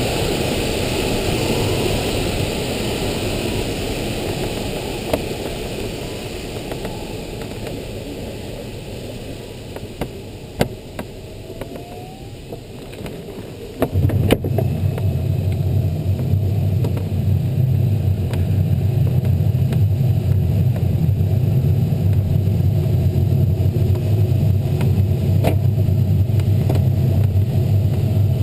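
Airflow rushing over an LS6 sailplane's canopy, heard inside the closed cockpit of the unpowered glider. The rush fades slowly over the first half and a few clicks sound. About halfway through, a sudden, louder low rumble comes in and holds steady.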